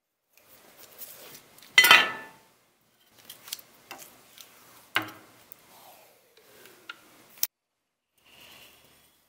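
Thin sheet metal handled on a wooden workbench: scraping and clicking, a loud rattle about two seconds in, a sharp tap about five seconds in, and a falling ringing tone as the sheet flexes. Near the end a marker scratches faintly on the metal.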